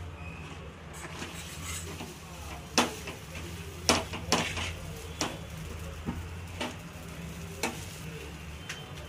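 Obbattu flatbread being laid on a hot pan, with a low steady hum and faint sizzling. From about three seconds in, a hand patting the plastic sheet pressed over it makes sharp taps and crinkles about once a second.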